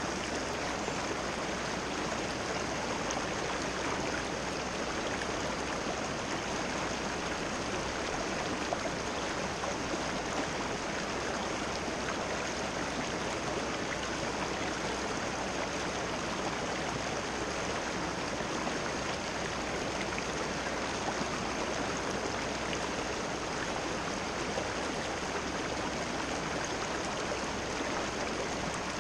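Fast river water rushing over rocks in a riffle: a steady, even rush of moving water.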